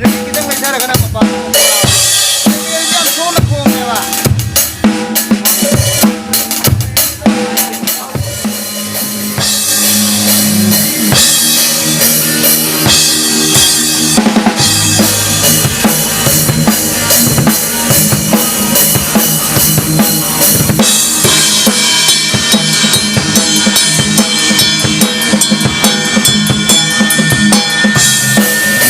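Amplified drum kit played loudly, with bass drum and snare strokes in a fast, busy rhythm, together with sustained pitched instrument notes, as in a band's sound check.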